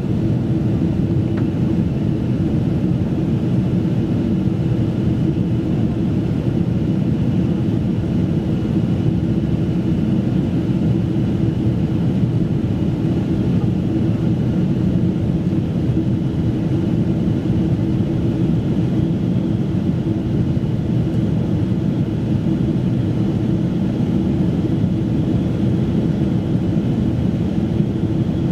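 Boeing 777-200 airliner cabin noise in flight: a steady low drone of engine and airflow noise with a constant hum running through it, unchanging throughout.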